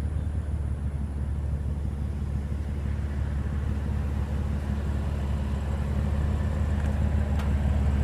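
Steady low rumble of outdoor vehicle background noise that grows slightly louder over the last few seconds, with a light click about seven seconds in.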